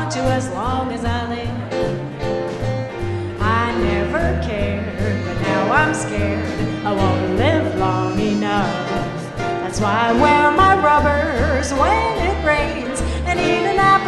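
Small swing combo playing live: an upright bass walking steadily underneath, drums with cymbals ticking on the beat, and a sliding melody line on top.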